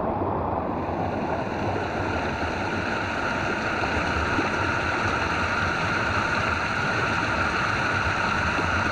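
Steady rushing water, like a stream or small waterfall, with a faint steady high tone joining about a second in.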